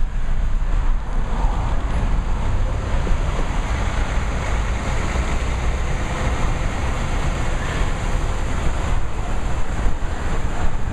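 Steady road and traffic noise heard from inside a car, with a strong low rumble under an even hiss.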